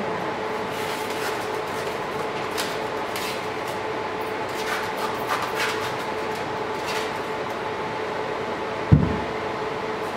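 Plastic cling film rustling and crackling in short spells as it is unrolled and stretched around a person's torso, over a steady electrical hum. A single dull thump near the end.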